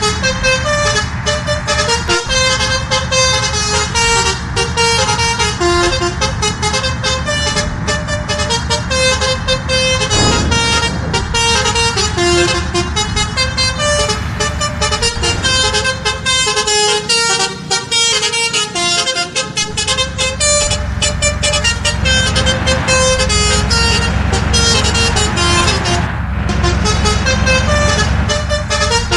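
A bus's telolet musical horn playing a fast, continuous tune of rapidly changing horn notes over a steady low engine rumble.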